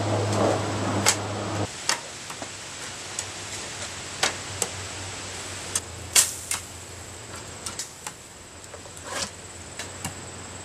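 Arrows striking a straw bale target: a dozen or so sharp, irregular hits spread over several seconds, over a low, steady background.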